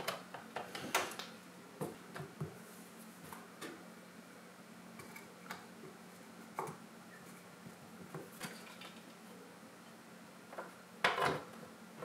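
Faint clicks and knocks of the coffee machine's hard plastic parts being handled during reassembly, a few scattered taps, with a louder clatter about eleven seconds in.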